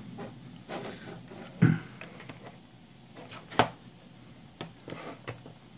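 Handling noises as test gear is moved on a workbench: a few light knocks and a sharp click about three and a half seconds in.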